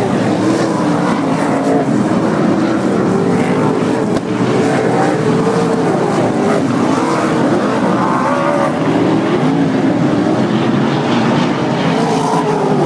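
Winged dirt-track sprint cars' V8 engines running at racing speed, loud and continuous. Several engine notes overlap, their pitch rising and falling as the cars go through the turns.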